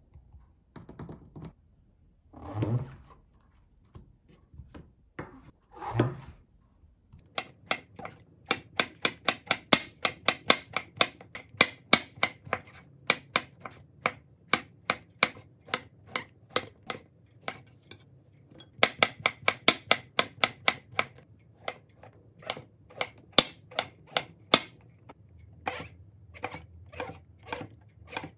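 Kitchen knife slicing king oyster mushrooms thinly on a wooden cutting board: sharp, even chopping taps, about four a second, in runs with short pauses, sparser near the end. Before the slicing starts, a few soft knocks and rubs as the vegetables are laid on the board.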